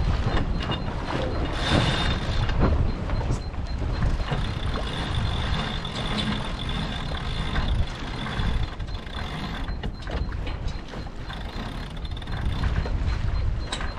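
Sailboat sheet winch being worked by hand, its pawls clicking in a ratchet, over a steady low rumble of wind on the microphone.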